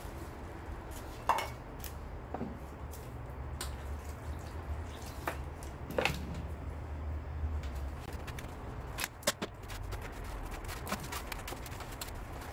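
Scattered knocks, clicks and squishing as a gloved hand scoops white cement powder into a plastic basin and stirs it with water, over a low background hum.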